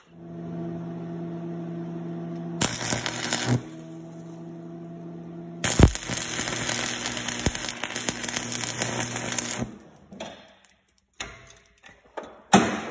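Electric arc welding a washer onto a steel screw head: a steady hum, a short burst of arc about three seconds in, then a longer crackling, spattering weld bead from about six to ten seconds, with short bursts near the end.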